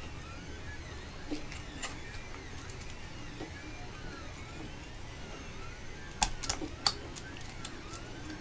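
Stepper motors of a running Ender 2 3D printer whining in rising and falling sweeps, roughly once a second, over a low hum. A few sharp clicks of printer parts being fitted together by hand, the loudest cluster about six seconds in.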